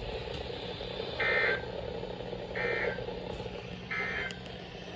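Emergency Alert System end-of-message data code on a weather radio: three short, identical buzzy bursts about a second and a half apart over the radio's steady hiss and hum. It marks the end of the severe thunderstorm warning broadcast.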